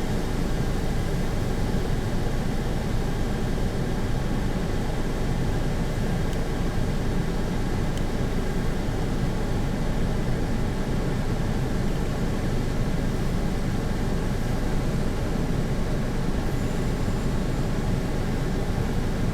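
Strong wind blowing on the microphone: a steady low rumble that never lets up.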